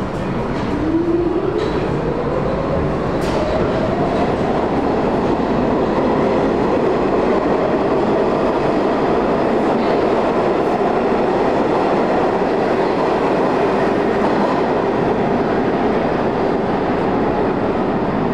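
Vintage R33/R36 subway train accelerating. Its traction motor whine climbs in pitch over the first few seconds, then holds fairly steady over the running noise of the wheels on the rails.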